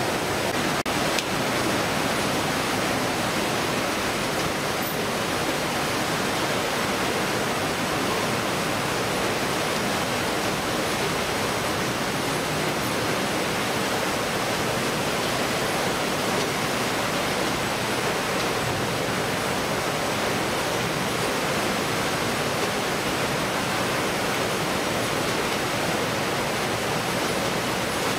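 Steady rushing noise of a shipboard fish-processing line, conveyors and machinery running with water flowing, with a faint steady high whine over it.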